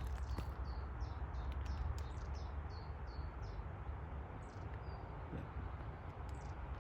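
A small bird calling a quick series of short, high, falling notes, about three a second, that stop about three seconds in, with a couple of single notes later. A steady low rumble runs underneath.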